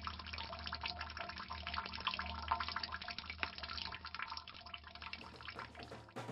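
Faint water trickling and dripping from a tap, a dense patter of small drips over a low steady hum.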